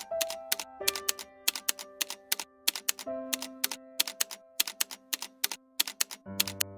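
Typewriter keys clacking in quick, irregular runs, as text is typed out, over soft background music of held notes. Near the end the music swells into a fuller, louder passage with low bass notes.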